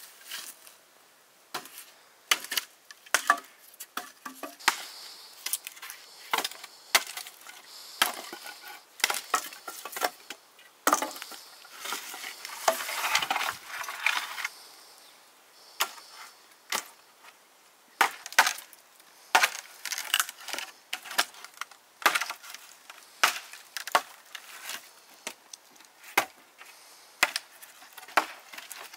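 Irregular sharp wooden knocks and cracks, a few a second, with a busier crackling stretch about eleven to fourteen seconds in.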